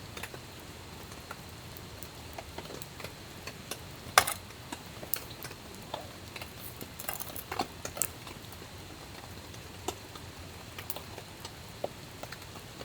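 Wood fire crackling: irregular snaps and pops over a low hiss, with one sharp pop about four seconds in.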